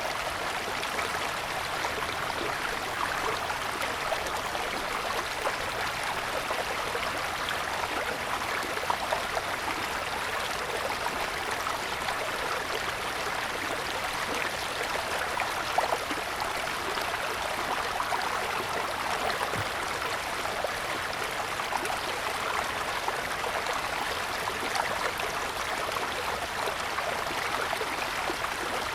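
Mountain stream running over snow-covered stones: a steady rushing and babbling of water, with small splashes now and then.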